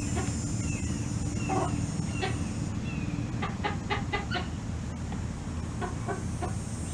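Chickens clucking: a few single clucks, then a quick run of about five near the middle and three more near the end, over a steady low rumble.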